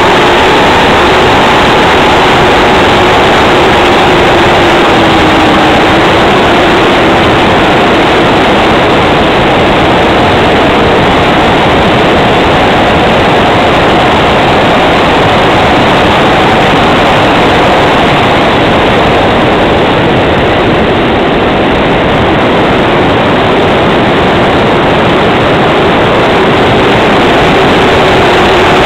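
Loud, steady rush of airflow over the microphone of a camera mounted on a glider in flight. Beneath it, a faint engine drone drifts slowly up and down in pitch.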